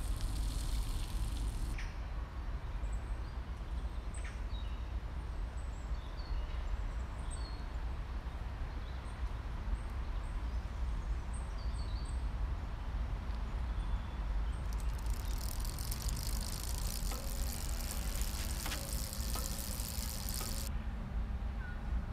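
Outdoor park ambience: a steady low rumble with small bird chirps scattered through the first half. A high hiss comes in for about six seconds in the second half.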